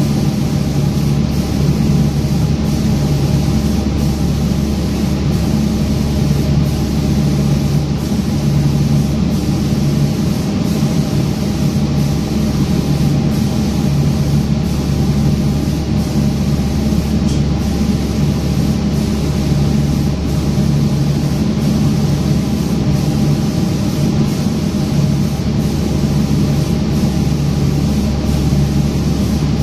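Automatic spray-painting machine at work: a steady machine hum with a constant hiss of air.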